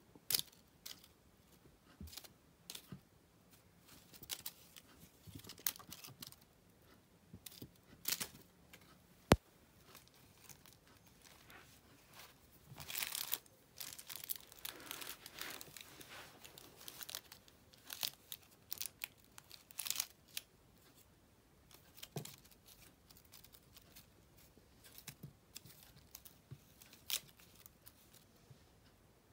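Shiny foil pompom on a wand toy crinkling and rustling as a kitten bats and bites at it, in irregular bursts with light taps, busiest around the middle. One sharp click about a third of the way in is the loudest sound.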